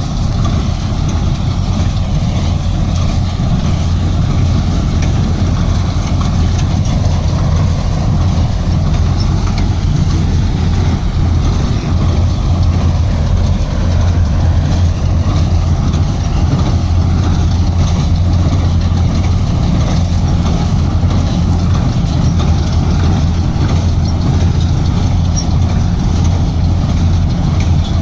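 Steady, loud, low machine hum running without a break.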